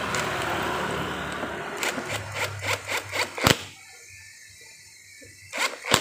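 Clicks and knocks of hard parts being handled as the front brake master cylinder reservoir on a Honda Vario's handlebar is closed up after topping up the brake fluid: a steady rustling hiss at first, then a quick run of light clicks with one loud knock about three and a half seconds in, and two more clicks near the end.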